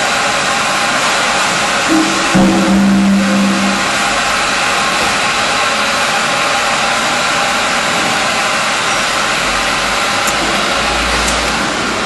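Automatic 5-gallon bottle brush washing machine running: a steady, loud machine noise with a few faint constant tones. A short low hum sounds about two seconds in and lasts about a second.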